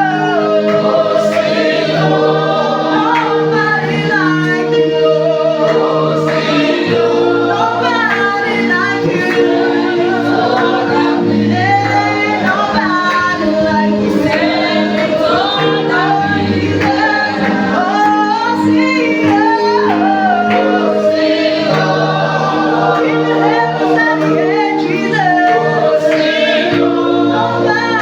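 A praise team singing a gospel worship song as a group, with sustained chords and low bass notes underneath.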